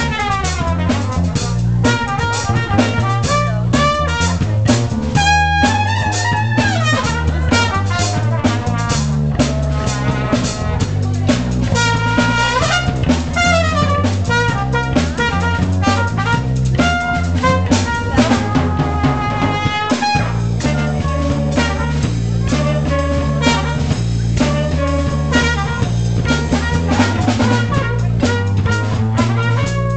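Jazz band playing a funk tune: a trumpet plays lead lines over a drum kit and a repeating low bass line.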